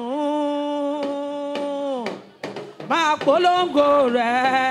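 A single voice singing long, held notes. The first note breaks off about two seconds in, and a rising phrase comes in near three seconds, settling into another long held note.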